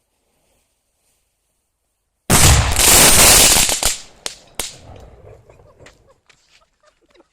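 A large 2000-gram firecracker going off with a sudden, very loud blast about two seconds in that lasts over a second before fading. Two sharp cracks follow, then scattered small clicks.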